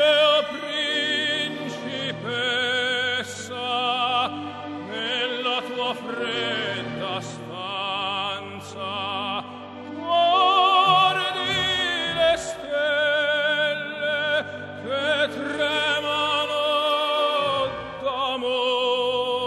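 Opera aria playing: a solo singer with a wide vibrato holding long notes over orchestral accompaniment.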